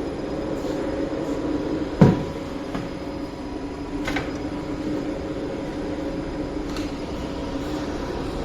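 Servo motor run by a freshly repaired Delta servo drive during a test, giving a steady mechanical hum at constant speed. A sharp knock comes about two seconds in and a fainter click about two seconds later.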